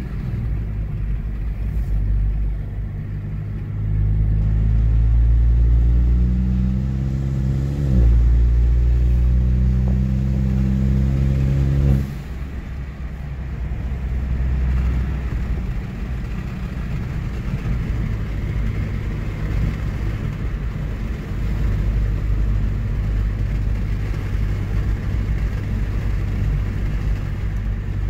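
2018 Hyundai Elantra GT Sport's 1.6-litre turbocharged four-cylinder, heard through a freshly fitted aFe axle-back exhaust, accelerating hard with the pitch climbing. There is an upshift about eight seconds in, a second pull, and at about twelve seconds the driver eases off into steady running.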